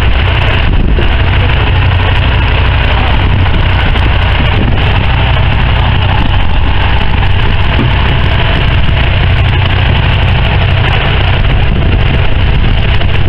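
Fishing boat's engine running with a steady low hum, under a constant rush of wind noise from the squall.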